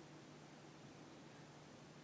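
Near silence: faint steady hiss with a low hum underneath.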